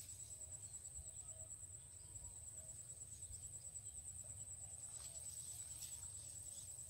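Faint, steady high-pitched insect trill, a fast even pulsing that runs on without a break, over a faint low rumble.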